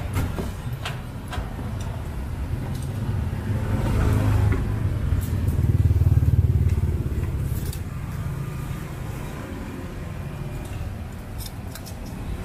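Road traffic: motorbikes and cars passing, a low engine rumble that swells about four seconds in and again around six seconds. Scattered sharp knocks from a cleaver chopping grilled pork on a wooden board, mostly near the start.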